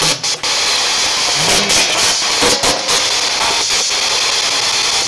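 Spirit box (P-SB7) sweeping through radio static: a loud, steady hiss chopped by short breaks and brief fragments as it skips from station to station.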